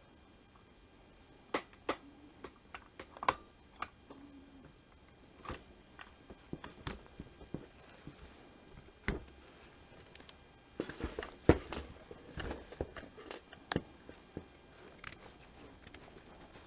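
Irregular light clicks and knocks of plastic trimmer parts and hand tools being handled and fitted together during reassembly, with a busier run of knocks about two-thirds of the way through.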